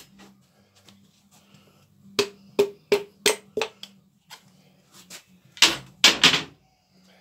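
Metal knocking during piston installation in an engine block: five quick sharp taps with a short ring, about three a second, then about two seconds later three louder, longer clattering knocks.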